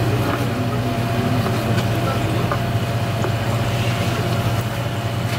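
Steady low machine hum, with a few faint taps of a knife on a plastic cutting board as raw conch meat is sliced.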